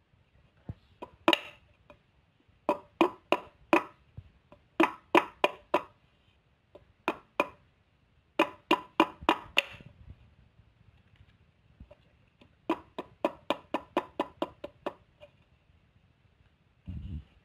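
Large knife chopping on a wooden cutting board: runs of quick, sharp knocks, from two to about ten strokes at a time, with short pauses between.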